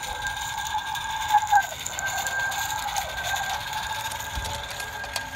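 Small live steam locomotive, an Accucraft Ruby, running past on garden-railroad track, with a steady shrill tone held at two pitches and a few light clicks.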